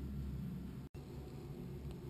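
Quiet kitchen room tone with a low steady hum, broken by a brief dead-silent gap from an edit about a second in.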